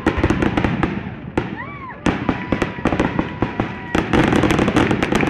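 Fireworks going off: dense rapid crackling and popping, thickening about two seconds in and again near the end, with thin whistles, one rising and falling about a second and a half in.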